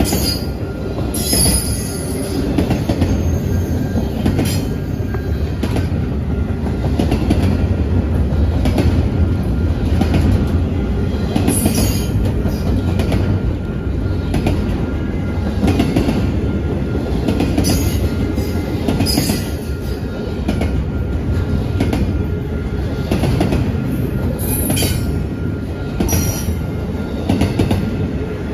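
Double-stack intermodal container train rolling past at close range: a steady loud rumble of steel wheels on the rails, broken every few seconds by brief high squeals.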